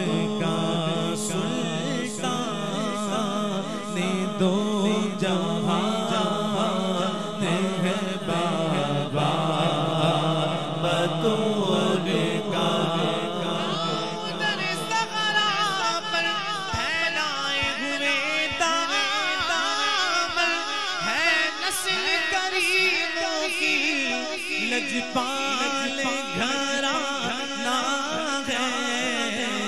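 Male devotional singing of an Urdu manqabat: a solo voice with long, ornamented, wavering held notes over a steady low drone that drops away near the end.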